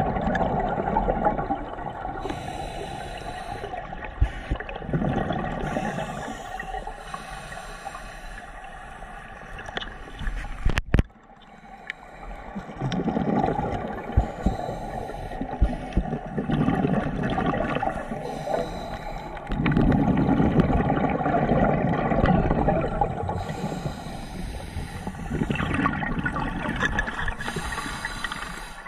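Underwater scuba breathing through a regulator: surges of gurgling exhaust bubbles every few seconds, with quieter stretches between. A sharp click comes about a third of the way in, followed by a brief lull.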